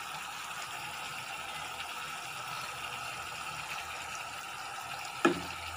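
Sliced onions in oil and sauce sizzling steadily in a frying pan, with one short knock near the end.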